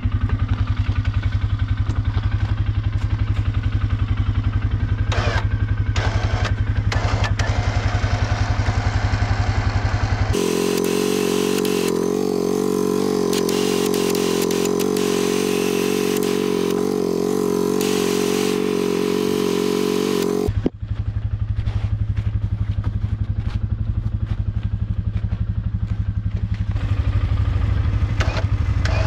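Polaris four-wheeler engine idling with a low, fast pulsing beat. About ten seconds in, a steadier, higher-pitched mechanical sound with a loud hiss takes over for about ten seconds and cuts off suddenly, and the low idle returns.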